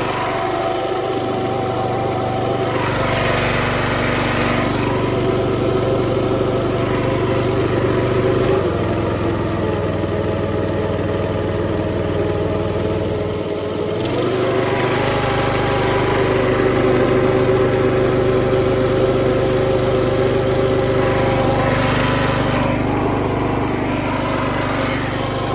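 An engine running steadily. Its note changes about eight and a half seconds in and comes back about fourteen seconds in.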